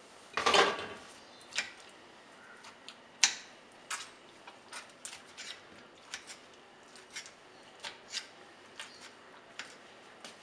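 Silbatta grinding stone in use as roasted tomatoes are mashed on it: a knock about half a second in, another a few seconds later, and scattered light clicks and taps between them.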